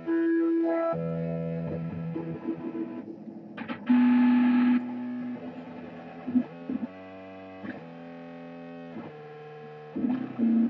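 Electric guitar played through distortion and effects pedals: sustained, buzzing notes that shift in pitch, a loud fuzzy burst about four seconds in, then notes breaking into quick repeating pulses.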